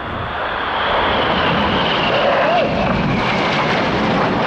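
Military jet passing in a flying display: loud jet engine noise that builds in the first second, with a high whine sliding slowly down in pitch as it goes by.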